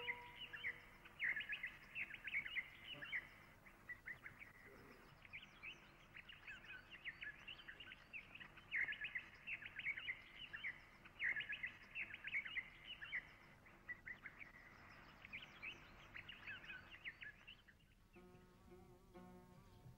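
Small birds chirping and twittering in repeated clusters of short, high chirps. A held musical tone fades out just at the start, and plucked-string music comes in near the end.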